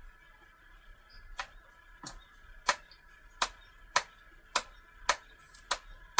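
Small electric mechanism on a remote-control crawler's boom-and-winch rig clicking at a steady pace, about one and a half clicks a second, over a faint steady electric whine.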